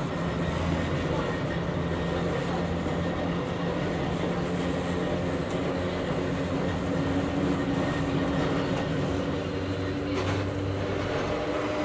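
Interior running sound of a Hakone Tozan Railway Moha 1 class electric car with nose-suspended traction motors, a steady hum and rumble. About four seconds in, a motor-gear whine comes in and rises slightly in pitch. A short knock follows about ten seconds in.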